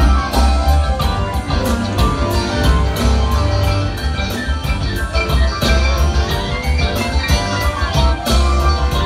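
Live rock band playing: electric guitars and keyboards over a drum kit keeping a steady beat.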